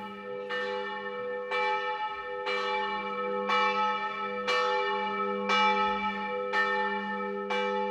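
Church bell tolling at a steady pace of about one stroke a second, eight strokes in all, its hum ringing on between strokes.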